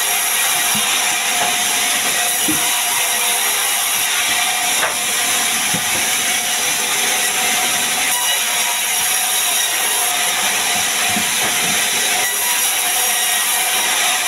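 Large vertical band sawmill running steadily, its blade cutting through timber as a plank and then a log are fed through: a loud, even, hissing whine.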